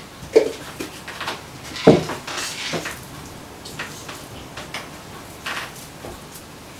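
Kitchen handling sounds of a metal flour shaker being shaken over a plastic pastry board and dough being handled on it: a few light knocks and clicks with short scraping hisses, the loudest knocks about half a second and two seconds in.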